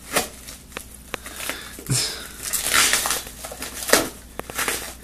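A knife blade and hands cutting, tearing and crinkling clear plastic wrap off a small package. Scattered crackles and snaps, with a longer noisy tearing rush about halfway through.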